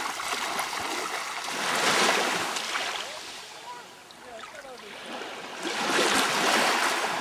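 Small sea waves washing in at the shoreline, swelling up twice about four seconds apart, with faint voices in the background.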